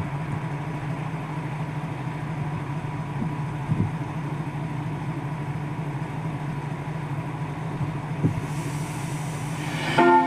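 A train's diesel engine idling with a steady low hum. Two short knocks come partway through.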